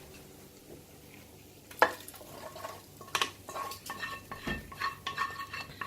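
A utensil scraping and knocking against a metal frying pan as fried onion and garlic are scraped out, the pan ringing with each clink. After a quiet start there is a sharp knock a little under two seconds in, then repeated scrapes and clinks from about three seconds on.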